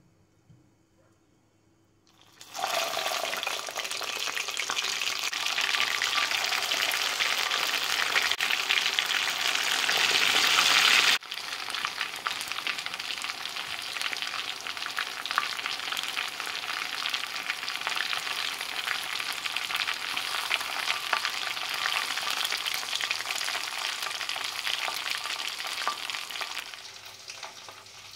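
Marinated fish pieces sizzling in hot oil in a wok, given a second frying to crisp them. The sizzle starts suddenly about two and a half seconds in, drops abruptly a little before halfway, then goes on slightly quieter and fades near the end.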